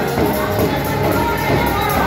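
A congregation singing a praise-and-worship song together, with a tambourine jingling in time.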